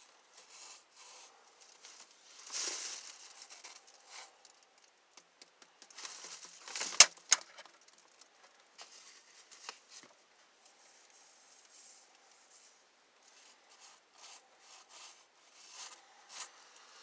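Small handling sounds of working on a pool hose at a workbench: scattered rustling and scraping, with one sharp click about seven seconds in.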